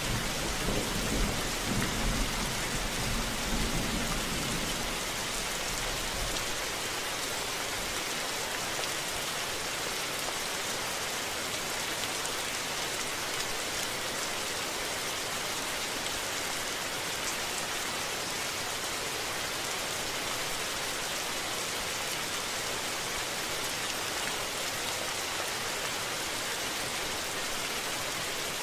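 Steady rain falling in a thunderstorm, an even hiss, with a low thunder rumble dying away over the first several seconds.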